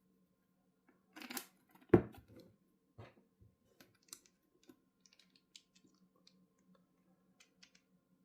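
Aluminium rack pillars and an acrylic shelf being handled and screwed together: a short sliding rustle, a sharp knock about two seconds in, then a run of small light clicks and ticks as the parts are turned and seated.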